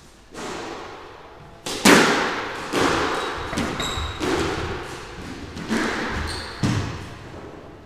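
Squash ball smacked by rackets and striking the court walls and floor during a rally, about ten sharp hits, each ringing in the enclosed court. The loudest comes about two seconds in, on an overhead serve. A few brief high squeaks, likely shoes on the wooden floor, sound between the hits.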